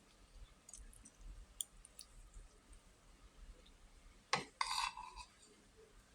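Eating sounds at close range: small mouth clicks and chewing, then a sharp knock a little over four seconds in, followed by a brief clatter.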